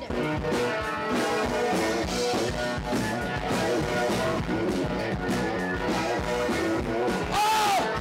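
Live rock band playing, electric guitar and drums over a steady beat.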